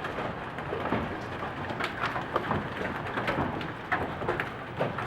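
Hailstorm: hailstones pelting hard surfaces in a dense, steady patter, with many sharp, irregular hits standing out.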